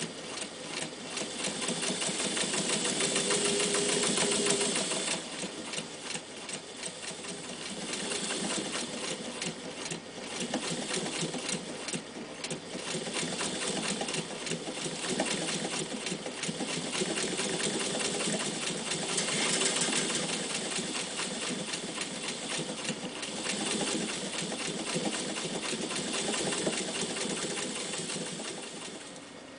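Jones 104 electric sewing machine running, its needle stitching through a leather strap: a fast, even mechanical clatter that speeds up and slows down, loudest about four seconds in and again around twenty seconds in, and easing off near the end.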